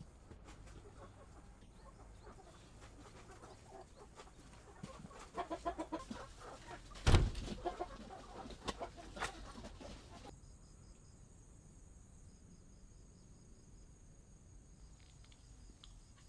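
Chickens clucking in a short run of repeated calls, followed by a single loud thump about seven seconds in and a few lighter knocks. The rest is quieter, with a faint high-pitched pulsing in the background.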